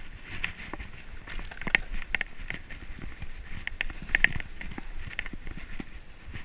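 Mountain bike rolling fast down a bumpy dirt singletrack: irregular clicks, knocks and rattles from the bike over the rough trail, over a low steady rumble.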